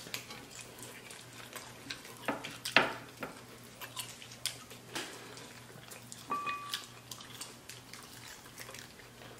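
Eating sounds of fried chicken wings being bitten, chewed and pulled from the bone, with gloved hands handling the pieces: scattered short crunches, clicks and mouth smacks.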